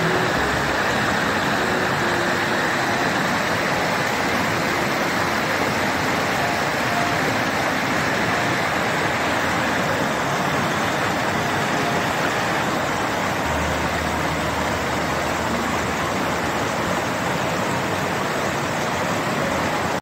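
Rocky mountain stream rushing over boulders in small cascades: a steady, loud rush of white water.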